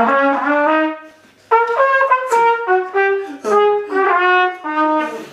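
Trumpet playing a melody: a held opening phrase, a short break about a second in, then a run of short separate notes.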